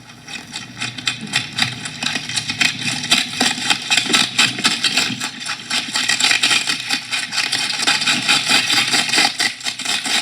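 Comedy sound effect of rabbits eating endive: a dense, fast run of crunching, rattling clicks and scrapes that fades in over the first couple of seconds and then keeps on at an even level.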